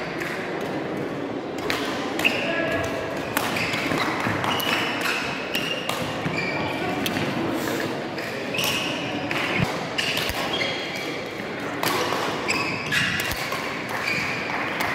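Badminton play in a hall: repeated sharp racket strikes on the shuttlecock and short squeaks of court shoes on the floor, over background voices.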